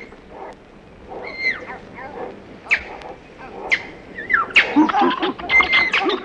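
A string of short, high animal-like squeals and honking calls, each falling in pitch. They come faster and crowd together from about four seconds in.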